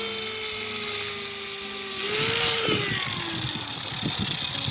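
Small handheld electric power tool whining at speed while cleaning up an old broken weld on a steel door-catch bracket. After about two and a half seconds its pitch drops and rough scraping of metal comes in as it bears on the work.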